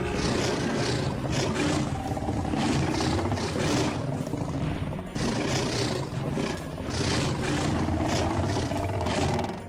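Animated-film dinosaur sound effect: a large predatory dinosaur roaring and growling in long pulsing stretches, with a short break about five seconds in.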